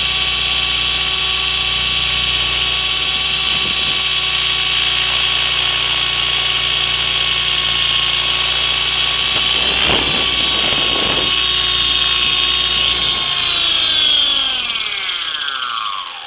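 X400 radio-controlled helicopter's motor and rotor running with a steady high-pitched whine, heard from a camera on board. There is a brief knock about ten seconds in. Near the end the pitch falls and the sound dies away as the helicopter sets down and the rotor spins down.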